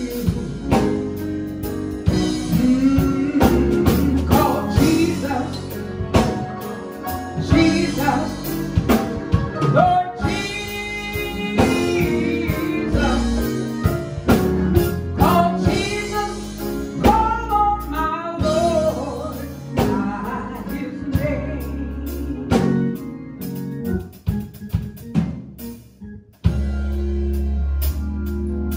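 Gospel song with a singer over a band, with drums and bass. Near the end the song thins out and a steady held keyboard chord comes in.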